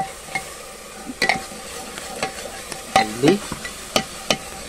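A plastic spoon stirring spice powder into water in a glass bowl, clicking against the glass half a dozen times, over a steady sizzle of masala frying in oil.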